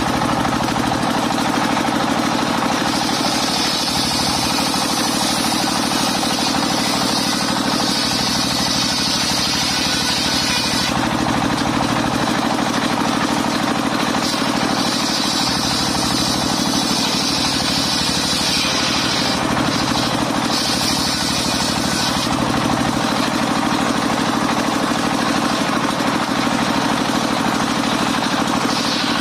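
Engine-driven mobile circular sawmill running steadily, with a higher hiss that comes and goes every few seconds over the constant engine hum.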